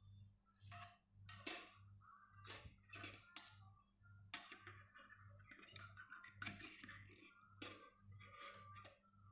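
Thin steel wire being bent and handled into a phone stand: faint, irregular clicks, taps and scrapes of the wire against itself and the table. Under them a low hum pulses about twice a second.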